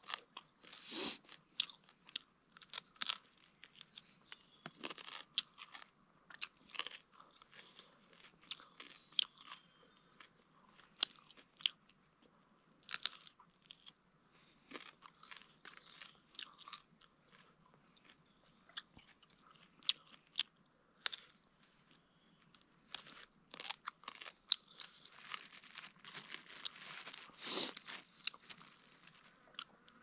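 A person biting and chewing roasted small birds, with many sharp, irregular crunches as the crisp meat and small bones are bitten through.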